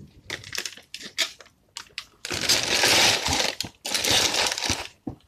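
Packet of muffin mix rustling and crinkling as it is handled: a few short crackles, then two longer stretches of crinkling, each about a second.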